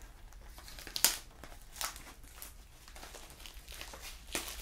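Packaging of a trading-card hobby box crinkling and rustling as it is handled and opened, with a few sharp crackles, the loudest about a second in.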